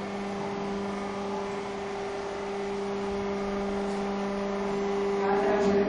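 Electric motor and hydraulic pump of an H-frame hydraulic press running, a steady hum with a low whine, growing a little louder near the end.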